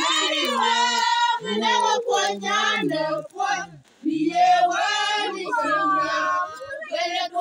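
A women's church group singing together, voices holding steady notes that step up and down between phrases. The singing breaks off briefly about four seconds in, then resumes.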